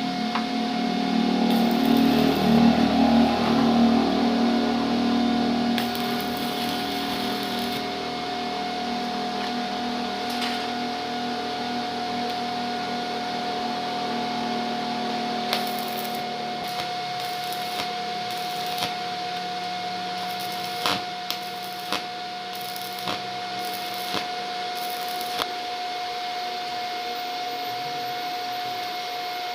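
Mini BTEC welding machine at work: a steady whine over a hissing crackle. It is louder and rougher in the first several seconds, and a run of sharp pops comes over the second half.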